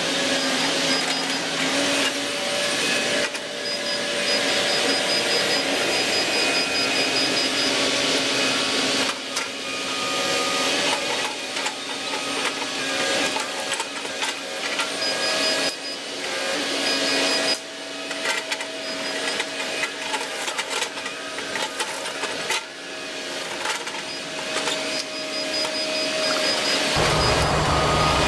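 Volvo ECR145EL excavator working: steady engine and hydraulic noise with held whining tones that shift a little in pitch, broken by occasional sharp knocks. About a second before the end a deeper engine hum comes in.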